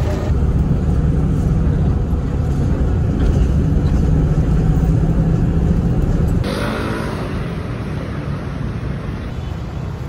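Bus engine and road rumble heard from inside the passenger cabin, a steady low drone. About six and a half seconds in, it cuts to a lighter, hissier cabin noise with less rumble.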